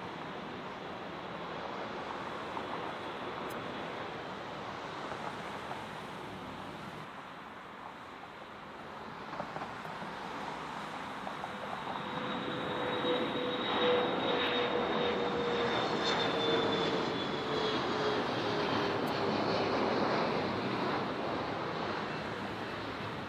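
Jet airliner's engines passing close by. The rumble builds to its loudest in the second half, with a whine that slowly falls in pitch as it goes past.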